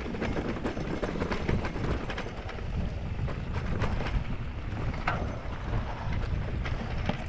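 Norco Sight VLT electric mountain bike rolling over a dirt trail: a steady rumble of tyres and wind on the microphone, broken by frequent sharp clicks and rattles from the bike over rough ground.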